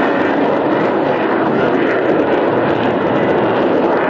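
Jet noise from BAE Hawk T2 trainers' Rolls-Royce Adour turbofan engines, a steady loud rush that holds even throughout.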